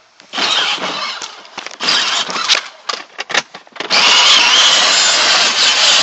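Crackling, scraping bursts of a phone being handled close up. About four seconds in, a kids' electric ride-on car starts driving, and a steady loud whir of its motor and wheels begins.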